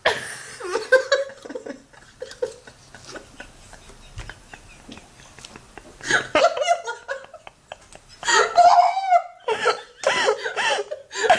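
A woman laughing hard in repeated bursts, with a quieter stretch in the middle before the laughter picks up again.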